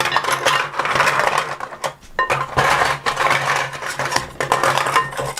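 Plastic toy fruit and vegetable pieces clattering and rattling against each other and a toy pot, in a dense run of clicks with a short break about two seconds in.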